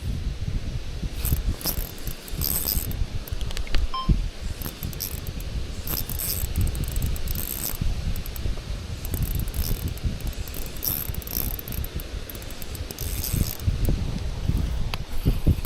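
Strong wind buffeting the microphone in a steady low rumble, with short bursts of high rustling or rattling every second or two and a few sharp clicks.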